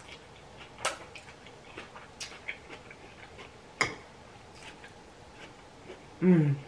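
Eating noodles with a metal fork from a ceramic plate: sharp clicks of the fork on the plate about one, two and four seconds in, with faint chewing and mouth sounds between. A short hummed "mm" falls in pitch near the end.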